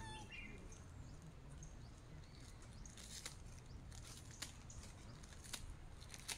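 Quiet outdoor ambience: a low rumble of wind on the microphone with a few scattered sharp clicks and crackles, and a short chirp at the very start.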